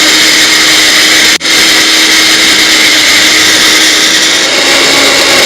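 Countertop blender running at full speed, blending frozen banana, carrots, orange juice and yogurt. The sound cuts out for an instant about a second and a half in, and the motor's pitch dips slightly near the end.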